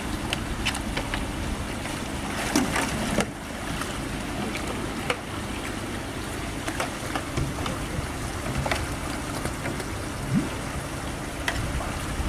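Muddy meltwater rushing along a ditch into a grated culvert inlet, with scattered splashes and knocks as a long-handled hooked pole is worked through the water at the grate, a louder cluster of splashes about two and a half seconds in.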